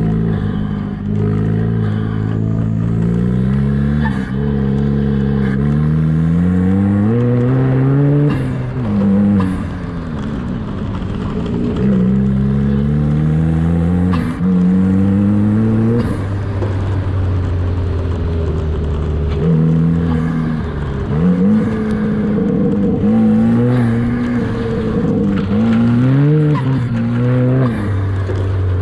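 Home-built buggy's turbocharged engine running hard, its pitch climbing for a second or two and then dropping back, over and over.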